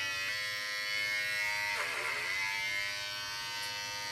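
Electric hair clippers buzzing steadily as they cut hair close at the nape, with a brief dip in pitch about halfway through.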